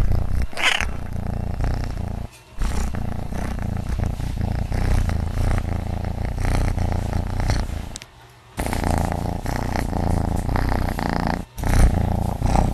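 Domestic cat purring loudly and steadily, close to the microphone, with a few short breaks.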